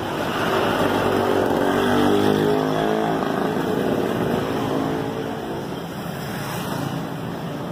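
A motor vehicle's engine passing close by on the street. It grows louder over the first two seconds, its pitch dropping as it goes by, and fades out by about five seconds in.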